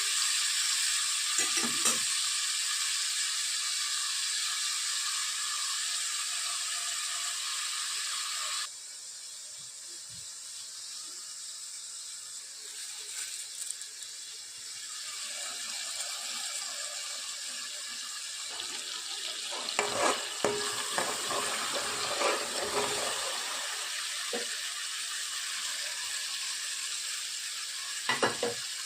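Food sizzling in a hot pan, a steady hiss with a few scrapes and clicks of stirring. The hiss drops suddenly to a quieter level about nine seconds in.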